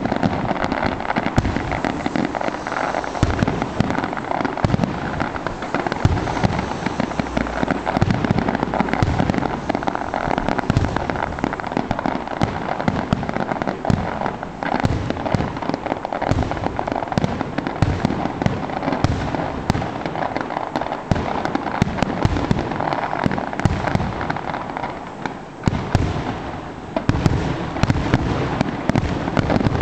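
Fireworks display: a dense, continuous run of shell bursts and crackle, with a short lull about 25 seconds in before the bursts pick up again.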